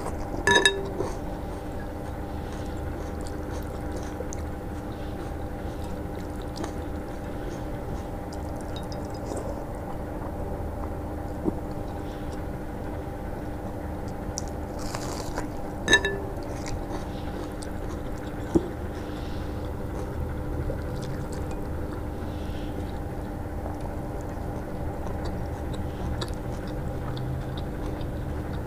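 Close-up eating sounds: crisp bites into a whole raw red onion, sharpest about half a second in and again about 16 seconds in, with chewing between them. A steady hum runs underneath.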